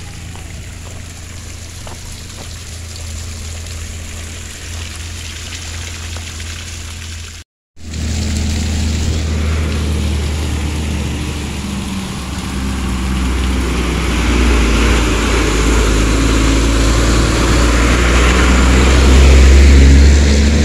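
Car engine running with road noise while the car climbs, a steady low hum. About seven and a half seconds in it cuts out for a moment, then comes back louder, with the engine and road noise rising toward the end.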